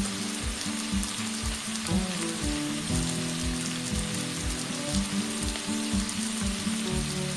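Tofu and long beans sizzling in a wok, an even frying hiss, with background music carrying a steady low beat.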